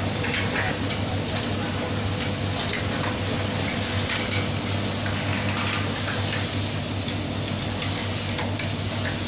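DEA electric gate operator running steadily with a low hum, moving the gate, with a few faint clicks and rattles from the gate.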